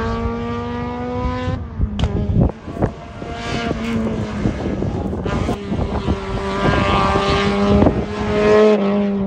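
A race car's engine accelerating hard up a hillclimb, its pitch climbing and then dropping back at each gear change. Several sharp bangs come about two to three seconds in.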